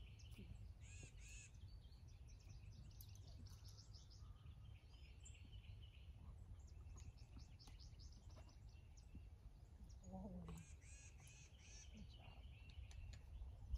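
Faint birds chirping over a low steady rumble, in two bouts of quick repeated notes: one in the first few seconds and another near the end.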